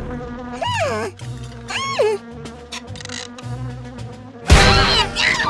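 Cartoon bees buzzing, with two short rising-and-falling tones, over light background music. About four and a half seconds in comes a sharp, loud hit of a hammer striking a nail.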